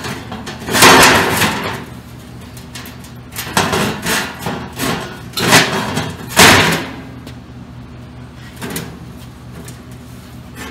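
Half-inch plate-steel forge pot being set and shifted in the opening of a steel forge table: a series of metal clanks and scrapes, the loudest about a second in and around six seconds, with a fainter knock near the end. A steady low hum runs underneath.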